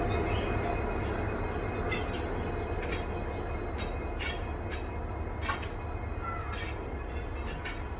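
Train hauled by a WDP-4D diesel locomotive running past with a steady low rumble and a series of sharp, irregular clicks. The sound slowly fades as it moves away.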